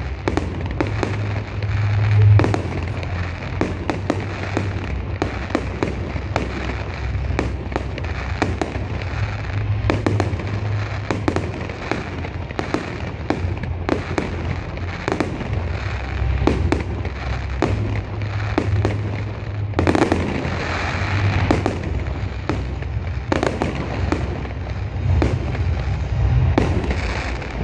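Fireworks display: aerial shells bursting one after another, many sharp bangs every second with no let-up, and louder clusters about two seconds in, around twenty seconds and near the end.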